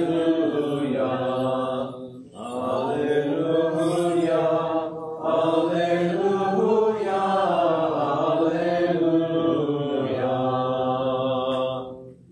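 Eastern Christian liturgical chant: men's voices singing slow, drawn-out lines over a steady low held tone, with short breath pauses about two seconds in and again near five seconds.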